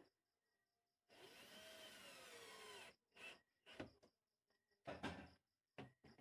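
Cordless drill driving screws into a wooden cabinet frame: one run of about two seconds with the motor's pitch rising and falling, then a few short bursts.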